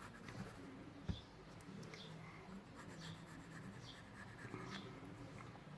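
Faint graphite pencil strokes scratching on plain paper, in short repeated marks, with a brief knock about a second in.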